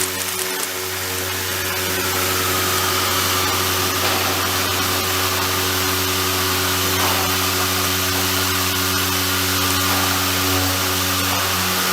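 Lymco SDV-HLA machining centre in a heavy milling cut: a steady hum with a ladder of even tones under a dense hiss.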